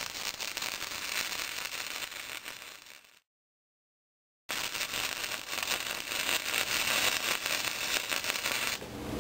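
Flux-core MIG welding arc from a Hobart Handler 120 crackling as a bead is laid. It cuts to dead silence about three seconds in for over a second, then the welding crackle resumes.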